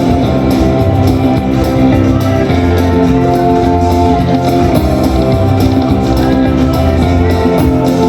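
Slot machine free-games bonus music, playing continuously at a steady loud level.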